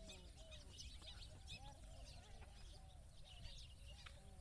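Faint, busy chatter of many birds calling together: a steady scatter of short high chirps over lower, repeated short arching calls.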